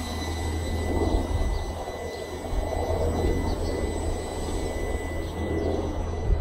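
Walkera QR LadyBird micro quadcopter's small motors and propellers buzzing steadily in flight, over a low rumble.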